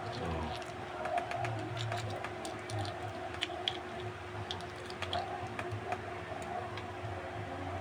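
Scattered light clicks and taps of small metal door-lock parts and screws being handled, over a steady background hum.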